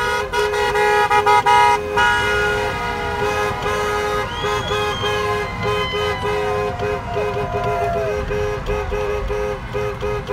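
Several vehicle horns honking at once, heard from inside a car. A two-note car horn sounds almost without pause, broken by short gaps, while other horns at higher pitches come and go, with quick repeated taps in the first two seconds.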